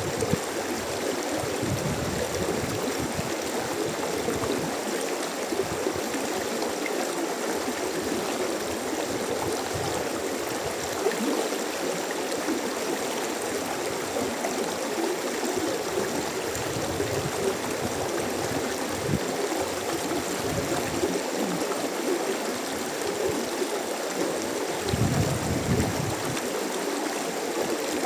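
Mountain stream flowing steadily: a constant rush of water, with low irregular gurgles coming and going underneath.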